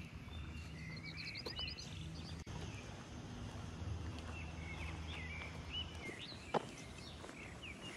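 Small birds chirping, with a quick trill about a second in, over a low steady hum that stops about six seconds in. A single sharp click stands out shortly after the hum stops.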